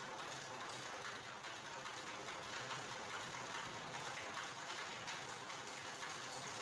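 Motorised sugarcane press running: a steady rattling noise with rapid faint ticks from its rollers and gears.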